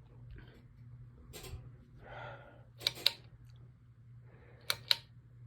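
52-inch Litex Piedmont ceiling fan running on high speed with a steady low motor hum. Twice, about three and about five seconds in, a quick pair of sharp clicks stands out above the hum.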